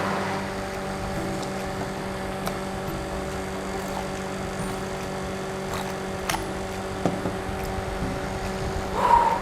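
A steady hum made of several even tones, with a few faint clicks and a short louder rustle near the end.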